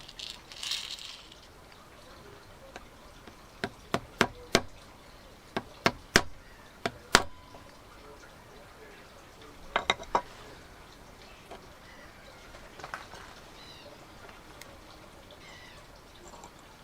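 Hammer tapping a punch to knock out the small pin in a Land Rover Discovery 2 door lock spindle: sharp taps in uneven groups, about nine over some four seconds, then a quick cluster of three a few seconds later and one faint tap after that.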